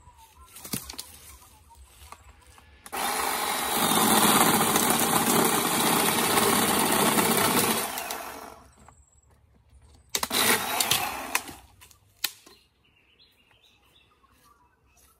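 Small handheld chainsaw cutting through a tree branch. It starts suddenly about three seconds in, runs steadily for about five seconds and then fades out, and a shorter burst of noise follows about ten seconds in.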